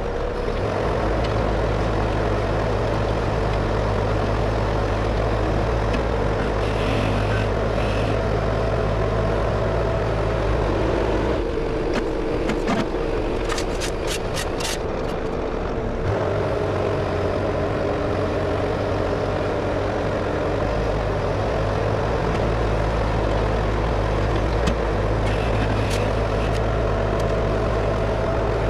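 Bobcat skid-steer loader's diesel engine running steadily while its hydraulic auger attachment drills a post hole. About halfway the engine note changes for a few seconds as the auger is lifted out, with a brief rapid rattle, then it settles back to the same steady running.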